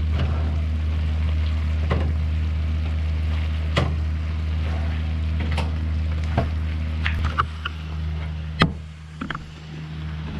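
Stovetop cooking while a braising sauce reduces in a pan of pork ribs: a steady low hum with a noisy haze, broken by scattered sharp clinks and taps of a utensil against the pan, the loudest about three quarters of the way through.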